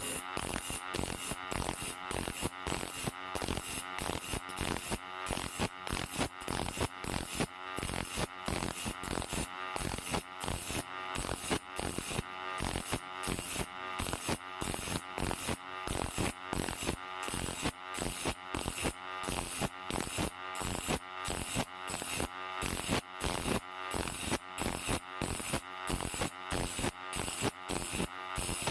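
Handsaw teeth being sharpened by hand with a file: even rasping strokes, about two a second.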